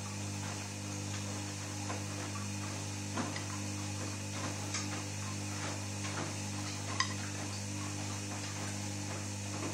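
Beko SMW 3508 TGK washing machine running a 30° delicates wash: a steady mechanical hum with light, irregular clicks and taps from inside the drum.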